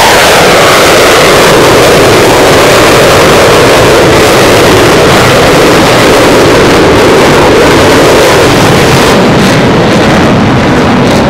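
Loud jet noise from F/A-18 Super Hornet fighters' twin General Electric F414 turbofan engines at high power. The pitch drops just after the start as a jet flies past, then the noise carries on as a loud, steady rush.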